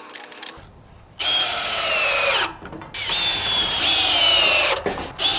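Electric power drill running in bursts of a second or two, twice, with a third starting near the end. Its whine sags slightly while running and falls in pitch as each burst stops.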